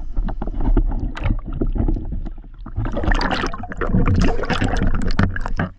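Water splashing and sloshing right at the camera in a river, with scattered knocks and a louder, busier stretch of splashing from about three seconds in.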